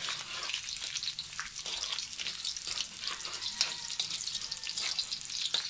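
Sliced onion and minced garlic sizzling and crackling in hot oil in a metal wok, stirred with a spatula: the onions just added to garlic that has already browned, the sauté base for the dish.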